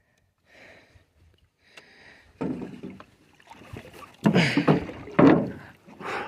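Thumps and knocks on a fishing boat as a freshly caught bass is handled, coming in irregular bursts, loudest about four to five seconds in.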